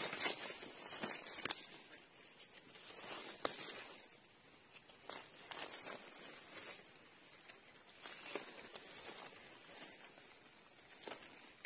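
A steady high-pitched insect drone, with scattered clicks and rustles of a knife blade digging into soil and leaf litter as mushrooms are lifted out of the ground.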